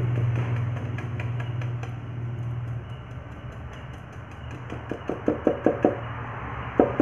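Paintbrush dabbing texture paint onto a plywood speaker box: a quick run of soft taps, about six a second, from about five seconds in. Under it, a steady low hum fades away over the first half.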